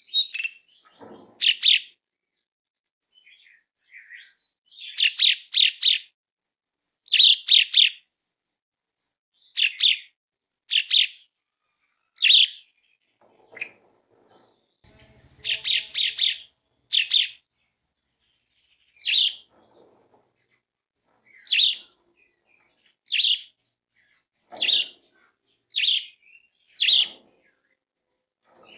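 Asian pied starling (jalak suren) calling: a series of short, high calls repeated every second or two, some coming in quick runs of two or three.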